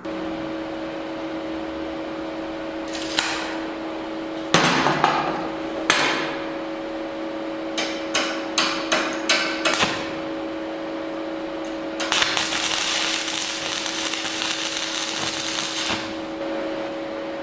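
Hammer blows on steel: a few single strikes, then a quick run of blows, over a steady two-tone machine hum. Near the end comes a hiss lasting about four seconds.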